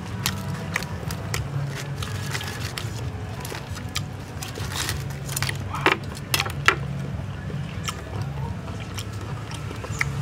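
Knife cutting and hands tearing apart a crisp grilled duck over a wicker basket: a run of sharp clicks and cracks from the skin and bones, the loudest a few cracks about six seconds in. A steady low rumble underlies it.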